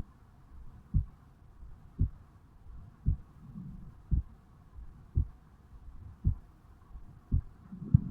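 A man's heartbeat picked up on the chest over the mitral valve area, at rest just after waking: low, steady thumps about once a second, about eight beats.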